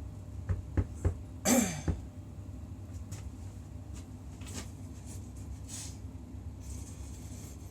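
A few light knocks of tools being handled, then one louder short scraping clatter with a falling pitch about a second and a half in, over a steady low hum; a pause between forging steps.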